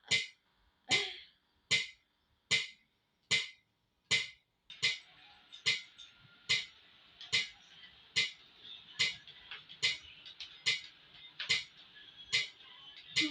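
Metronome ticking steadily at about 75 beats a minute, each tick a short sharp click. A faint hiss of background sound comes in under the ticks about five seconds in.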